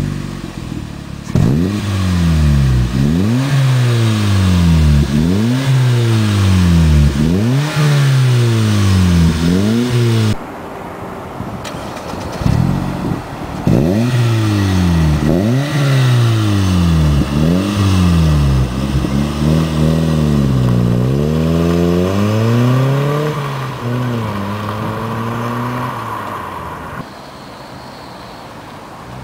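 Vauxhall Vectra C 2.2's four-cylinder engine heard through a Cobra Sport stainless steel rear box with twin slash-cut tailpipes, revved over and over while parked: about a dozen quick revs, each rising and falling in pitch, with idle between. Later the note holds steadier and higher for several seconds, then turns quieter near the end as the car drives off.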